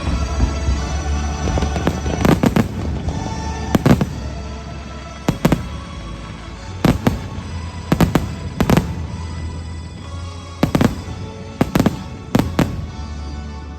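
Aerial fireworks bursting overhead in a series of about a dozen sharp bangs, unevenly spaced, some in quick pairs. Show music plays steadily underneath.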